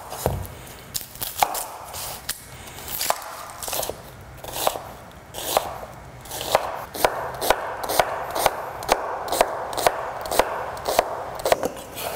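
Chef's knife cutting yellow onions on a bamboo cutting board: scattered cuts and knocks at first, then, about six seconds in, steady dicing at about two strokes a second.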